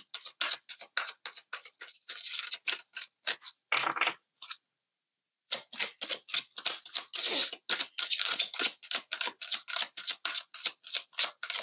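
Oracle card deck being shuffled by hand: a fast run of sharp card flicks and slaps, several a second, breaking off for about a second midway and then resuming.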